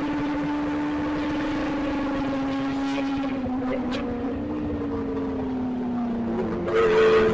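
Kawasaki inline-four sport motorcycle engine running at high revs on the move, its pitch slowly falling as the throttle eases. Near the end a louder rush of wind and engine noise comes in, with a second, higher engine note.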